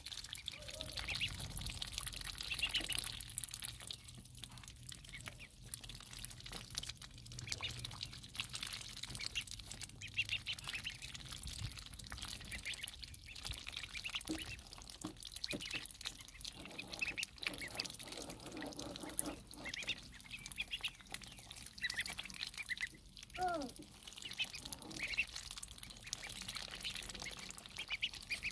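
A group of ducklings peeping continuously while they dabble their bills in a bowl of water, with small splashes and slurps.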